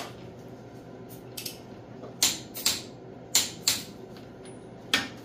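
Sharp metallic clicks, several in pairs, from a wrench and socket on the cylinder head bolts of a Farmall 450 engine as the head is tightened down.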